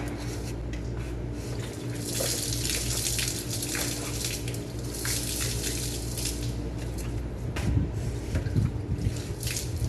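Water poured over a bicycle, splashing onto the frame and running off in uneven splashes.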